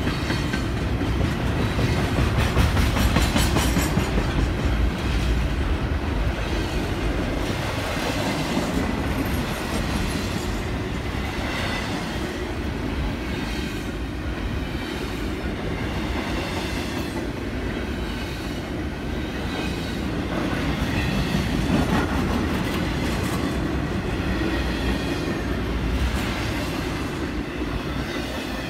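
Double-stack intermodal freight train's container well cars rolling past at close range: a steady, loud rumble and clatter of steel wheels on the rails.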